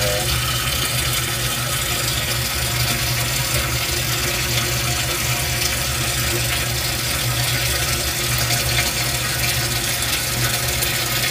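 Water pouring steadily into an aquaponics fish tank from the pump's return line, churning and bubbling the surface, over a low steady hum.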